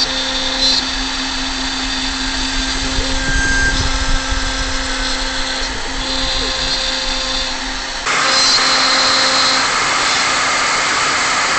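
CNC router spindle running steadily with a constant whine while its cutter mills MDF. About eight seconds in, the sound abruptly turns louder and hissier.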